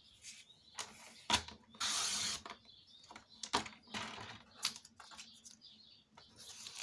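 Sheet of cardstock being slid and lined up on a plastic paper trimmer: short bursts of paper sliding and rustling, with several sharp clicks and taps.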